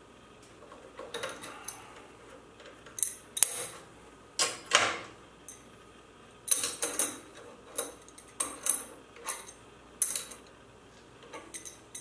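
Irregular metallic clinks and rattles of hand tools on a benchtop milling machine's head during a tool change: a wrench on the drawbar and a strap wrench gripping the spindle.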